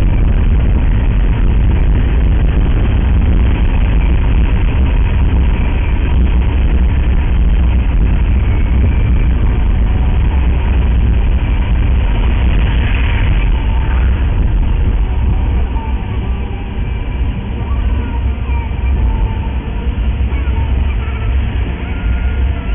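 Steady low rumble of a car's tyres and engine while driving, heard from inside the cabin through a dashcam microphone. A brief rushing sound comes about 13 seconds in, and the rumble eases somewhat a few seconds later.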